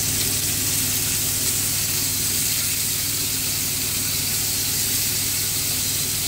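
Raw pork fillets sizzling steadily in hot oil in frying pans as they are laid in with tongs. A kitchen extractor fan hums steadily underneath.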